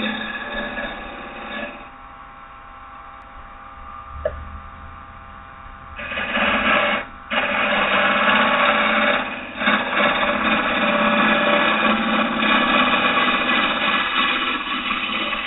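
Carbide-tipped turning tool cutting a spinning piece of green oak on a wood lathe: a steady scraping hiss over the lathe's running hum. The cutting falls away for a few seconds near the start, with one sharp tick, then resumes for the rest with a brief break about seven seconds in.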